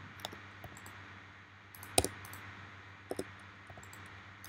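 Scattered clicks of a computer keyboard and mouse, with a sharp one about two seconds in and a quick pair a little after three, over a faint steady hum.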